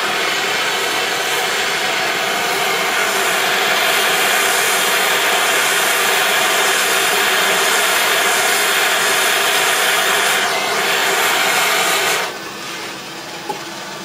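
Hand-held gas torch burning with a steady hiss as its flame fire-polishes a glass bottle; the flame is shut off about twelve seconds in.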